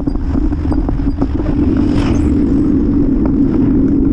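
Wind and road rumble picked up by a camera on a moving bicycle's handlebars: a steady low drone with scattered rattles and knocks as the bike rolls over the pavement.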